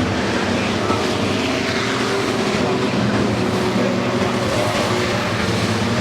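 A field of racing trucks running laps together, many engines mixed into one steady drone.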